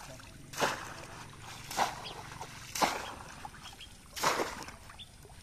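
Bamboo polo fish trap plunged down into pond water four times, about a second apart, each a sudden splash that dies away quickly, with water dripping between the strokes.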